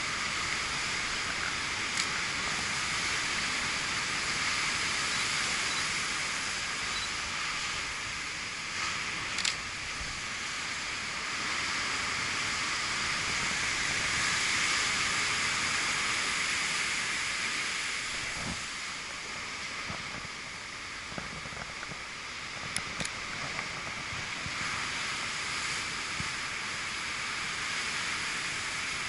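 Ocean surf: a continuous hiss of breaking waves that swells about halfway and eases off after, with a few faint clicks.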